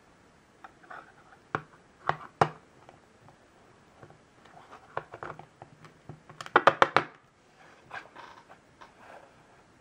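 Hard plastic clicks and knocks from handling a Banpresto Colossal Titan figure and fitting its foot pegs onto its black plastic display base. There are a few single clicks early, then a quick run of the loudest clicks a little past halfway, with soft handling rustle between.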